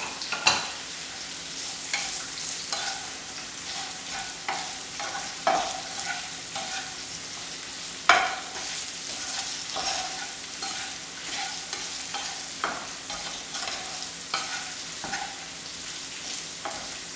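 Fried chicken pieces sizzling in hot oil in a pan with green chillies and garlic while being stirred and tossed. A spoon knocks and scrapes against the pan many times, loudest about eight seconds in.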